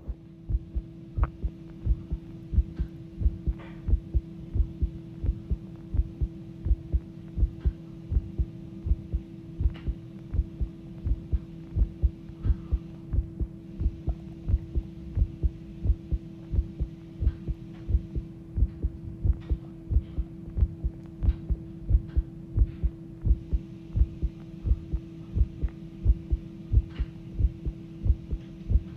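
Human heart beating fast: an even, unbroken run of short low thumps, with a steady hum underneath.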